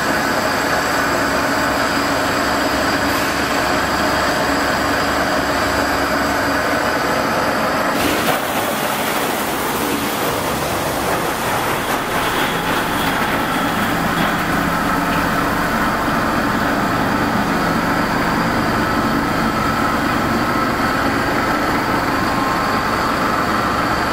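A CBFI HYF50 plate ice machine running with its refrigeration compressor, making a steady mechanical hum and hiss with a few held tones. The mix of the noise shifts about eight seconds in.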